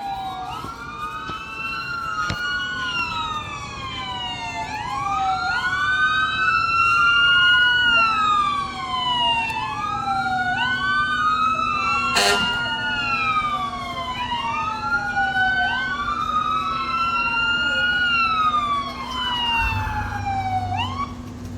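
Emergency vehicle siren wailing, its pitch rising quickly and falling slowly in long sweeps about every four seconds. A steady low hum joins partway through.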